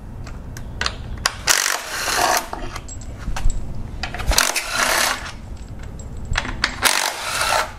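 Handheld cordless driver with a socket on an extension spinning out engine timing-cover bolts in three short bursts, with metallic clicks and clinks of the socket and loosened bolts between them.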